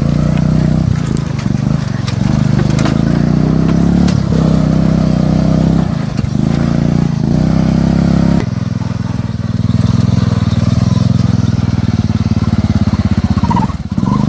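Poulan XT off-road riding mower's engine running hard and loud under throttle, easing off briefly several times. Its tone changes abruptly about eight seconds in.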